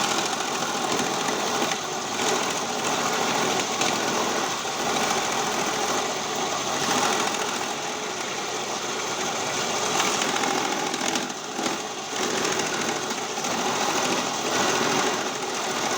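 Cassava shredding machine running with a continuous mechanical noise that wavers in level and dips briefly about eleven seconds in.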